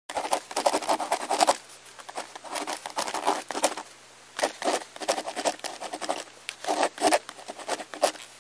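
Crinkling plastic snack packet being shaken out, with dry puffed corn snacks rattling as they fall onto a heap, in several bursts of dense crackling.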